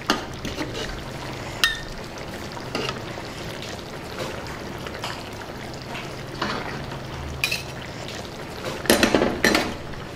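Metal ladle scooping thick egg curry from a steel kadai and clinking against the pan and a small steel bowl while serving, with scattered light clinks and a few louder metal knocks about nine seconds in.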